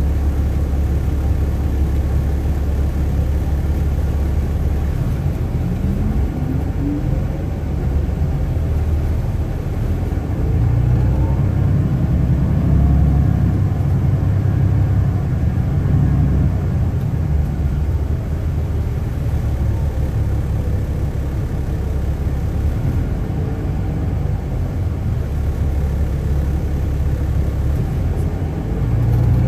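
Inside a moving 2007 MCI D4500CL diesel coach bus: the steady low rumble of the engine and drivetrain, with faint rising whines as the bus picks up speed, first about six seconds in and again several times after.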